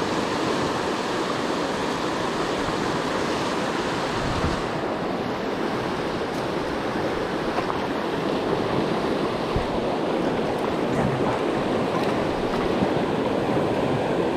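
Whitewater of river rapids rushing steadily close by.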